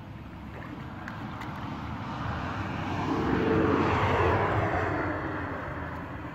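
An engine passing by: a steady hum that swells to its loudest about halfway through and fades again.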